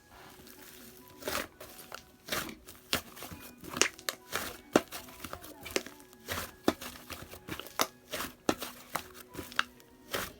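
White fluffy clay slime being squished and stretched by hand, giving off irregular sharp pops and clicks about once or twice a second as air pockets burst.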